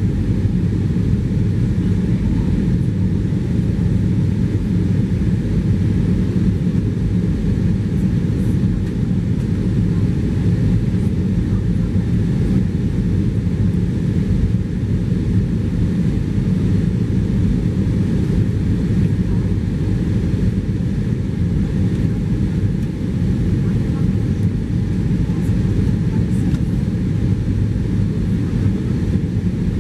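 Steady cabin noise of an Airbus A320-214 in flight, heard from inside the cabin: the even, low-pitched roar of its CFM56 engines and the airflow over the fuselage, unchanging throughout.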